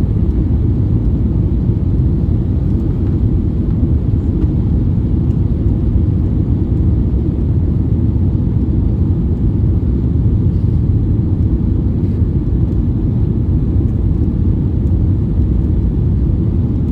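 Steady, deep rumble of an Airbus A321neo's cabin noise heard from a passenger seat: engine and airflow noise, even and unbroken.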